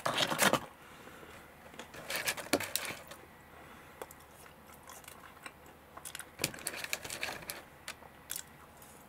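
A person chewing French fries, heard as several short bursts of small clicks and crackles with quiet between.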